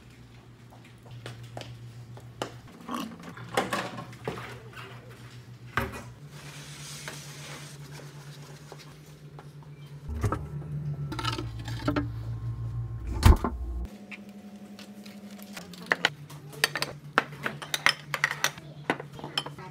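Scattered knocks and clicks over a steady low hum, with one sharp loud knock in the middle. Near the end come quick light clinks of ceramic plates and bowls being handled on a table.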